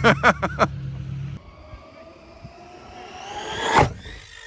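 Radio-controlled car's electric motor whining, rising steadily in pitch and getting louder as it accelerates, loudest near the end and then cut off.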